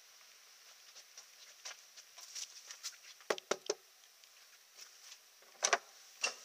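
Three quick knocks on a wooden front door about halfway through, then two more thumps near the end, over faint hiss and light scuffing.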